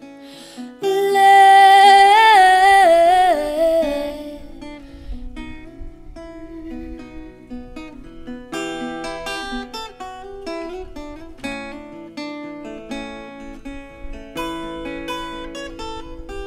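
A woman's voice singing one long note with vibrato over acoustic guitar, sliding down and fading after a few seconds; then the acoustic guitar plays on alone, picking out separate notes.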